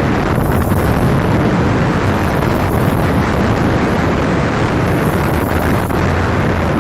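Strong wind buffeting the microphone: a loud, steady roar.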